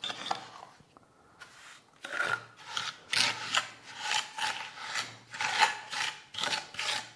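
Steel trowel scraping sand-and-hydraulic-lime mortar across a hollow clay brick, spreading it on. After a quieter second or two, gritty scrapes follow at about two strokes a second.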